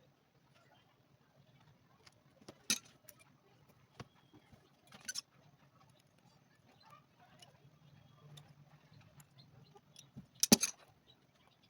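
Scattered sharp clicks and light taps of hand tools and materials being handled during shoe repair work, with the loudest quick cluster of clicks near the end.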